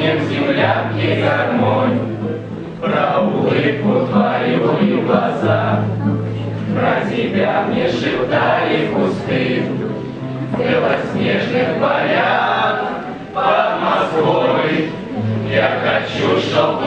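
A group of young voices singing a song together to an acoustic guitar, in phrases with short breaks between lines.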